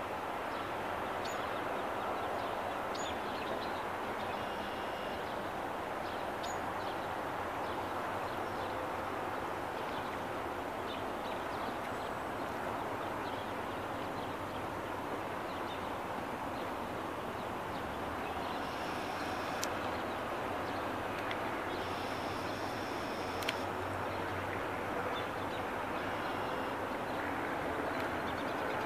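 Steady rush of running river water. A few short, high bird calls come over it at intervals.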